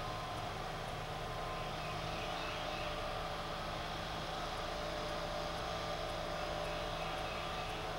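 Riding lawn mower engine running steadily at high speed, heard from a distance.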